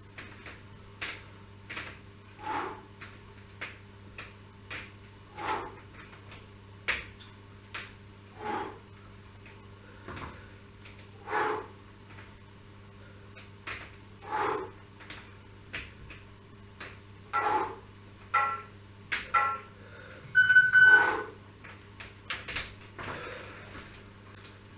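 Inverted rows on suspension trainer straps: a short sound on each pull about every three seconds, with light clicks between, over a low steady hum. Near the end comes a louder, higher-pitched sound.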